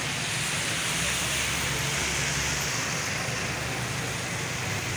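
Rain falling steadily, a continuous hiss, with a motor vehicle running past on the wet road.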